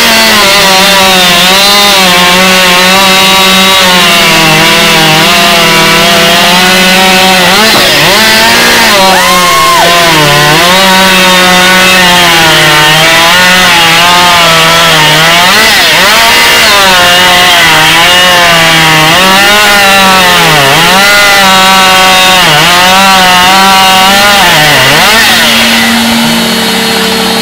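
A two-stroke chainsaw running hard and cutting through wood, its engine pitch dipping and recovering again and again as the chain bites into the log. Near the end it holds a steady pitch.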